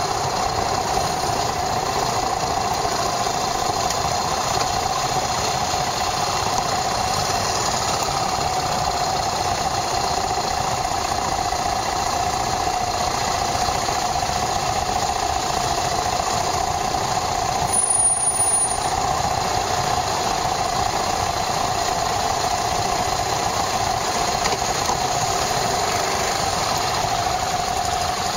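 Yamaha SRX400's single-cylinder four-stroke engine running steadily, heard from a camera mounted on the bike, with a brief louder bump about two-thirds of the way through.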